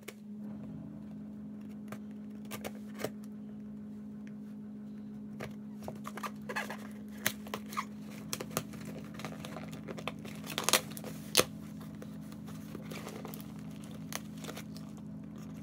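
Cardboard shipping box being opened by hand: packing tape cut and peeled off with tearing and crinkling, and cardboard scraping as the flaps are worked open, with two sharp snaps a little past the middle. A steady low hum lies under it.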